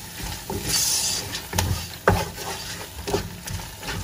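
Wooden spatula stirring a thick tomato stew in a nonstick pot, scraping and knocking lightly against the pot about twice a second, over a faint sizzle of the simmering sauce.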